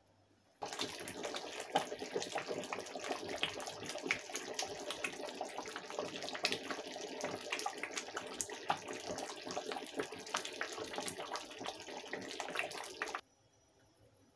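A pot of thick bitter leaf soup boiling, a steady bubbling with many small pops. It starts suddenly about half a second in and cuts off sharply near the end.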